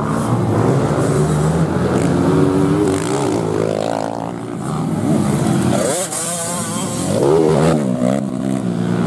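Racing motorcycle engines revving, their pitch repeatedly rising and falling as riders accelerate and ease off along the dirt track, with more than one engine heard at times.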